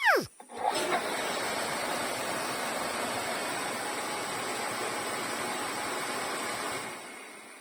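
Water rushing in a steady, even gush that fades off near the end, opened by a quick falling tone at the very start.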